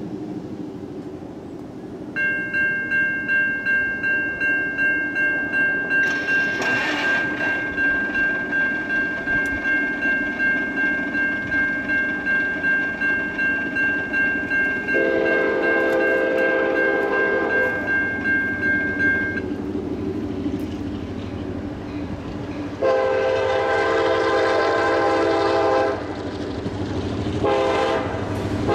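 Grade-crossing warning bell ringing about twice a second, then a diesel locomotive's air horn sounding a long blast, a second long blast, and a short then long blast, the crossing signal pattern, over the building rumble of an approaching freight train.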